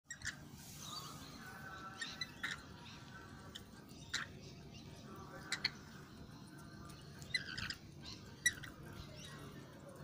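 Rainbow lorikeets giving short, scattered chirps and squeaks, several seconds apart, over a faint low hum.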